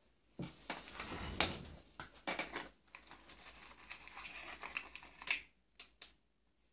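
Handling noise: small plastic parts and wires rustle and scrape as they are handled and taken out of a hinged plastic case. A few sharp plastic clicks come through, two of them close together near the end.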